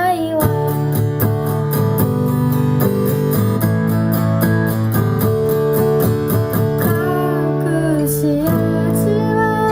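Acoustic guitar strummed in a steady rhythm, playing the chords of a sung song between vocal lines, with a voice coming back in near the end.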